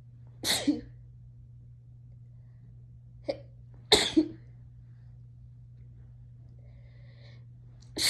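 A person sneezing twice, about three and a half seconds apart, each sneeze a sharp double burst. A brief sharp sound comes just before the second, and a third sneeze starts right at the end. A steady low hum runs underneath.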